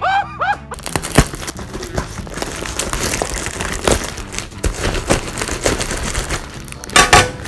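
A plastic courier mailer bag crinkling and rustling as it is cut open with a knife, with many small clicks and scrapes. A brief burst of cartoon laughter comes first, and a short voice sounds near the end.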